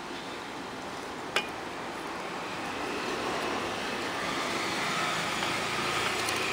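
Rushing background noise that swells slowly over several seconds, like a vehicle going past, with one sharp click about a second and a half in.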